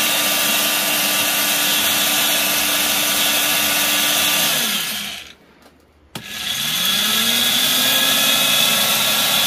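Evolution 400 W power file (a small belt file sander) running at turned-down speed with a steady whine while its belt tracking is set. About four and a half seconds in it is switched off and winds down to a stop; after a click a second or so later it starts again and whines back up to speed.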